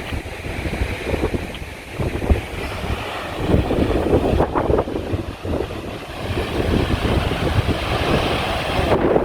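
Strong gusty wind buffeting the microphone, a rushing rumble that swells and eases, as a thunderstorm moves in.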